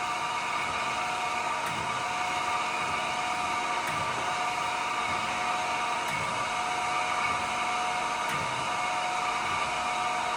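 Chevalier FSG-3A1224H hydraulic surface grinder running a spark-out pass: a steady spindle and hydraulic-unit hum with a whine, as the wheel grinds with the down increment stopped. A faint click and swell come about every two seconds, in time with the table's back-and-forth strokes.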